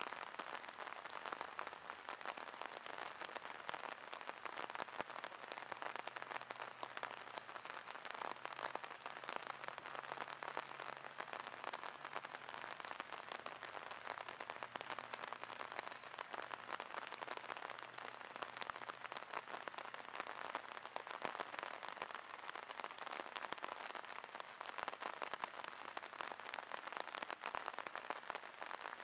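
Steady rain falling on the water of a drainage ditch and the grass around it: an even hiss of many small drop impacts that never lets up.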